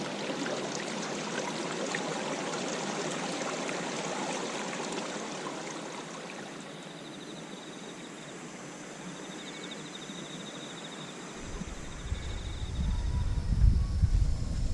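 Steady rushing of flowing stream water, with an insect's fast high trill in the middle. A low rumble comes in near the end.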